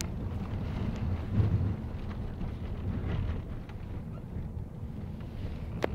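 Steady low rumble inside the cabin of a moving 2007 Volvo V50 2.0D diesel: engine and road noise. A louder thump comes about a second and a half in, and a sharp click just before the end.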